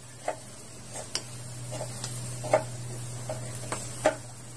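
Metal spatula knocking and scraping against a wok while stirring pork and sweet potato in a little broth: irregular sharp clinks, the loudest about two and a half and four seconds in, over a steady low hum.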